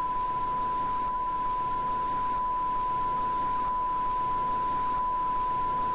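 TV test-pattern tone: one steady, unwavering beep at a single pitch, of the kind broadcast with colour bars during technical difficulties.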